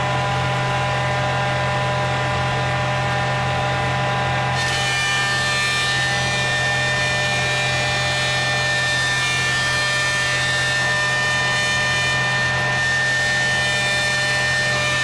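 Woodmaster 18-inch thickness planer running steadily with a whine, planing sycamore boards. About four and a half seconds in the sound turns brighter and hissier.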